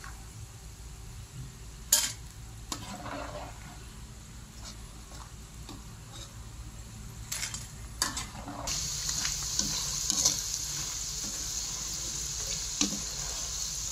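Banana slices deep-frying in hot oil in a wok, sizzling steadily, with a few sharp clinks of a metal slotted spoon against the pan. The sizzle grows louder and brighter about nine seconds in.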